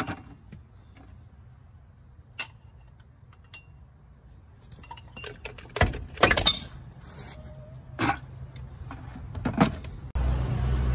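Scattered metallic clinks, knocks and scrapes as a truck wheel hub is worked and slid off its axle spindle by hand. A steady low rumble starts suddenly near the end.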